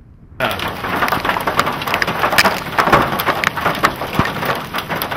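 Hailstorm: hail and rain falling hard, starting suddenly about half a second in. Many sharp separate hail impacts stand out over a dense, steady patter.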